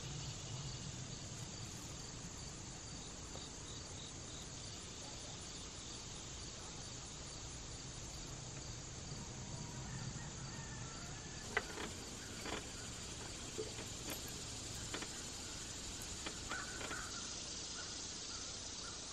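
Insects chirring steadily in the background. Over the second half come a few light, sharp clicks and knocks.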